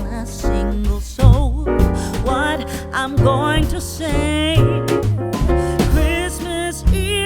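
Background song: a sung melody with vibrato over piano or keyboard chords and a bass line.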